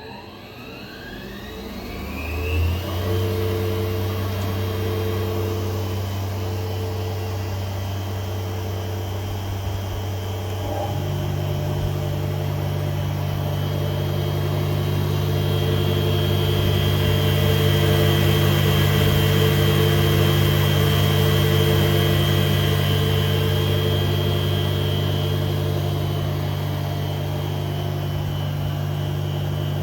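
REMA Fx1 sliding table saw starting up: its motor spins up with a rising whine over the first few seconds, then runs steadily. About a third of the way in, a second, lower steady hum joins as another motor comes on.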